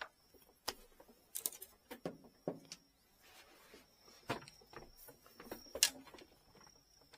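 Scattered small clicks, taps and short scrapes of hands working on the tip section of a bamboo fishing rod, with the loudest taps about four and six seconds in. A faint steady high tone runs behind.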